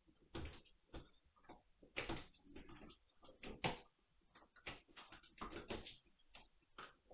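Eight-week-old Magyar Vizsla puppies scuffling in play: irregular clicks, taps and knocks of paws and bodies on the hard floor and against the pen, a few every second.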